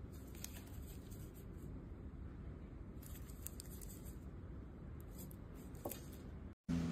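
Faint low background rumble with a few soft clicks and rustles scattered through it, cutting off suddenly near the end.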